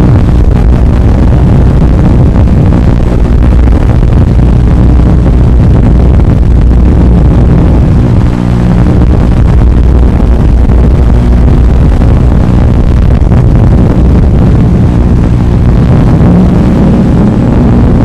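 Small FPV racing quadcopter's brushless motors and propellers running, loud and close, with a steady buzzing drone as it flies.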